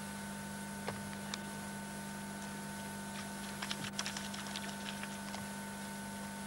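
Steady electrical hum on an old camcorder recording, with scattered light clicks and crackles. A quick flurry of them comes about four seconds in.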